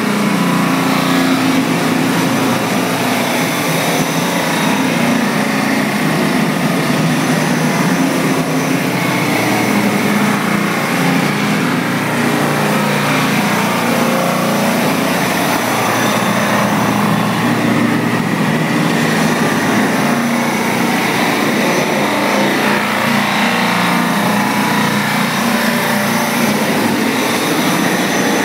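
Universal bullnose edging machine running steadily, its grinding-head motors humming under a continuous spray of coolant water.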